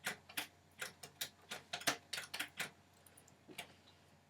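Typewriter keys struck one at a time: about a dozen light clacks at an uneven pace over the first two and a half seconds, then a single clack a second later.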